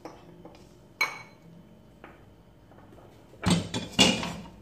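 Wok and metal spatula clanking: one sharp ringing clink about a second in, then two loud clanks a little after three seconds in as the wok goes back onto the gas stove.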